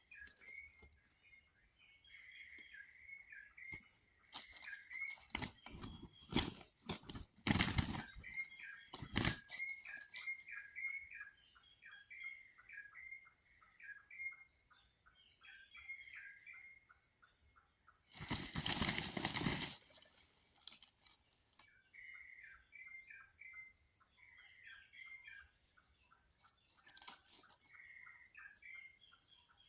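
Outdoor rural ambience: small birds chirping over and over, with a steady high insect drone. Short, loud noisy bursts break in several times a few seconds in, and a longer one comes about two-thirds of the way through.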